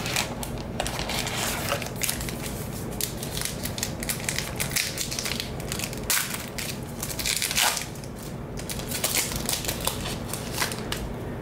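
The foil wrapper of a baseball card pack crinkling and crackling as it is pulled from the box and torn open by hand, with irregular rips and rustles.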